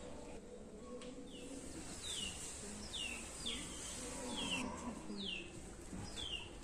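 A bird calling over and over: a short, high note falling in pitch, repeated about seven times at intervals of under a second.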